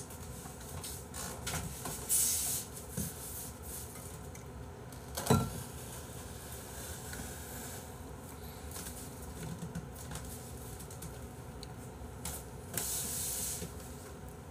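A person eating quietly at a table: faint mouth sounds, a few small clicks of chopsticks and dishes, a dull thump about five seconds in, and two short hissing sounds, one about two seconds in and one near the end.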